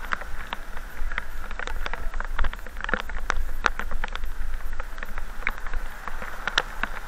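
Raindrops tapping close to the microphone in irregular clicks, several a second, over a low steady rumble from the slowly moving vehicle.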